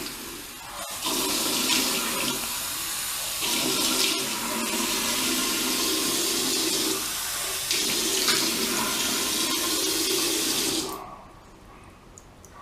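Warm tap water running into a sink while it is splashed onto the face, the sound changing briefly twice; the water stops about eleven seconds in.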